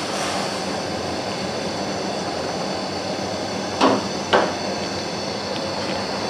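Sugar syrup with dried plums boiling hard in a steel karahi, a steady bubbling hiss. A little under four seconds in come two sharp knocks, about half a second apart.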